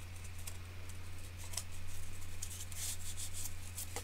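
Pipe cleaner being twisted and bunched up by hand against corrugated cardboard pieces: soft, irregular rubbing and scraping, louder in the second half, over a steady low hum.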